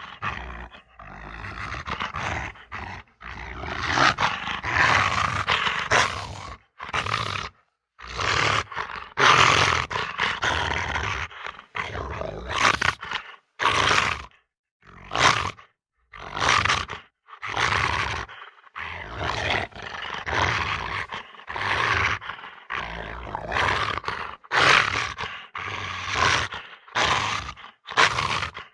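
A string of short animal-like roars and growls played one after another, each lasting half a second to two seconds, with brief silences between them.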